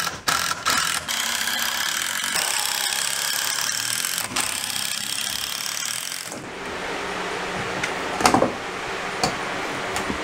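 Cordless impact driver driving screws into wooden 2x4 framing, with clicks and knocks of the wood and tool being handled. After about six seconds the driving stops and a single louder knock comes about eight seconds in.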